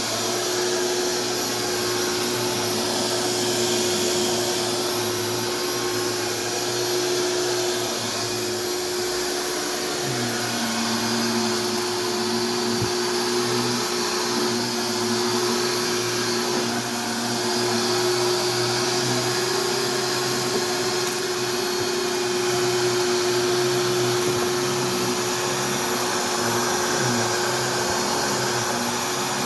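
Castex Lite Trac vacuum cleaner running steadily over carpet: a constant motor whine with airflow hiss, joined by a second, lower tone about ten seconds in.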